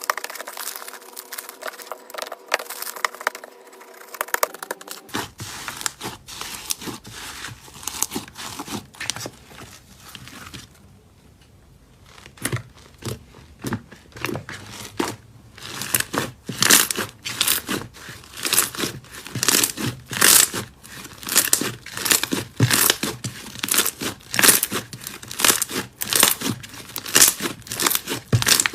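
Slime being squeezed and worked, making crinkly, crackling noises; after a short quieter spell midway, sharp pops and snaps follow one another quickly, several a second.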